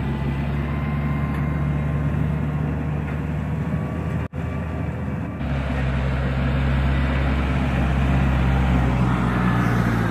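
Farm tractor's diesel engine running steadily under load as it pulls a tillage implement. There is a brief break about four seconds in, and then a tractor engine runs on steadily.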